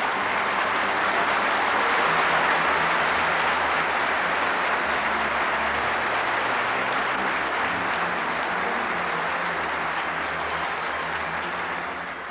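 A large seated audience applauding steadily, dying down near the end.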